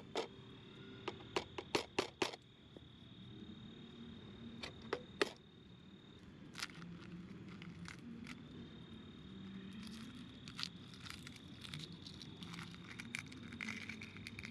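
A handful of sharp clicks and taps on an egg, then dense fine crackling from about ten seconds in as the shell of a boiled egg is cracked and peeled by hand. Under it runs a thin, steady, high insect trill that drops out now and then.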